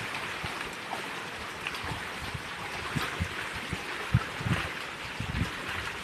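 Small rocky stream running over stones, a steady babbling rush of water, with scattered soft low bumps.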